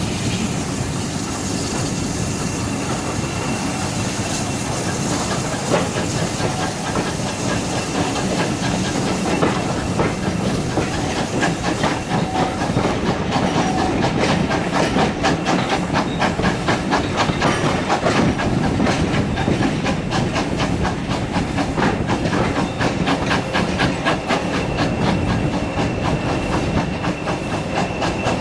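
Train running, heard from an open coach window behind ex-GWR 0-6-0 pannier tank No. 5764: a steady rushing hiss with the wheels clicking over rail joints and pointwork. The clicking comes thick and fast from about halfway through.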